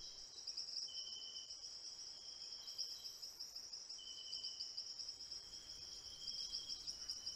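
Faint, steady high-pitched insect chirring, with shorter trills at other pitches coming in and dropping out a few times.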